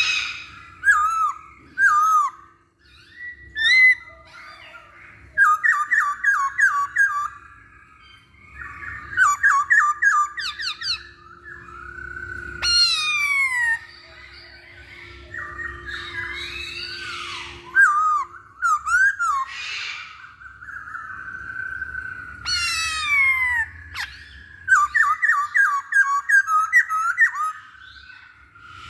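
Poksay Hongkong (black-throated laughingthrush) singing a varied song in phrases with short pauses: quick runs of repeated notes, gliding whistles and sharp downward slurs.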